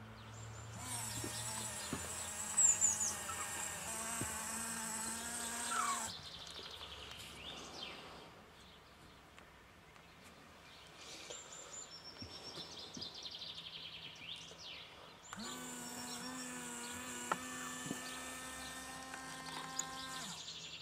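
Small electric motor in a model warning trailer whirring steadily for about five seconds as it raises the folding sign board. It whirs again near the end as the board folds back down. Birds chirp throughout.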